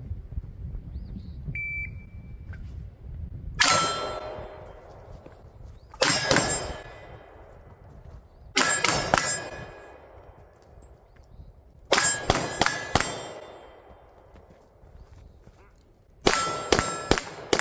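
Pistol shots fired in quick strings, the hits ringing steel targets with a clang. There are about five strings, with pauses of two to three seconds between them while the shooter runs to the next position; the last string is the fastest, with several shots close together.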